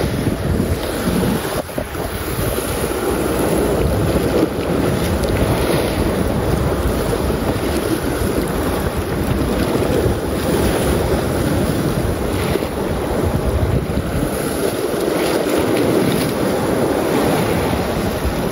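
Wind buffeting the microphone over small ocean waves washing and foaming against shoreline rocks.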